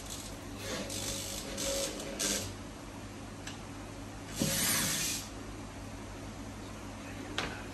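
Corded electric drill boring into a wall in short bursts: several brief runs in the first couple of seconds and a longer, louder one about four and a half seconds in, with a sharp click near the end.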